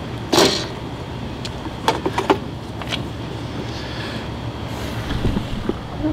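A plastic motorcycle windshield and its metal mounting brackets knocking and clattering as the windshield is lifted off the handlebars during a test fit. There is one loud knock about half a second in and two sharper ones about two seconds in, over a steady low background hum.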